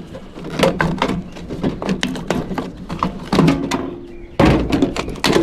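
Irregular metal clunks, knocks and scrapes as a small microwave's fan motor is worked loose and lifted out of its sheet-steel housing, with louder knocking starting about four and a half seconds in.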